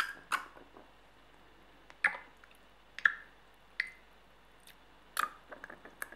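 Liquid dripping: a handful of separate drops at irregular intervals, each a short wet plink, with a small cluster near the end.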